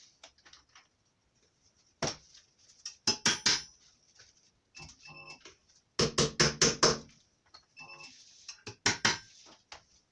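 Metallic clinks and sharp knocks of wheel balancing weights being picked from the balancer's weight tray and knocked onto the wheel rim. They come in short clusters of quick strikes about two, three, six and nine seconds in.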